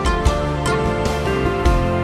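Instrumental background music with sustained notes over a bass line.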